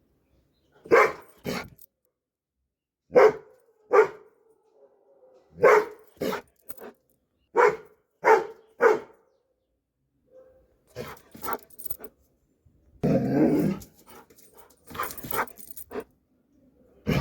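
Doberman barking in short, loud barks, often in pairs, through the first half, then softer barks with one longer, rough growl-like sound past the middle.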